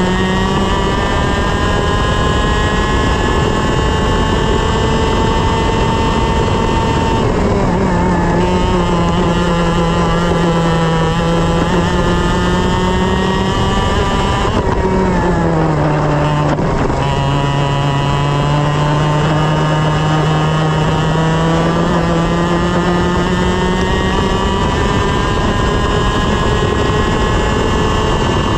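TaG kart's 125 cc two-stroke single-cylinder engine running at high revs. The pitch drops sharply about a quarter of the way in, and again in two steps around the middle, then climbs slowly back up each time as the kart accelerates.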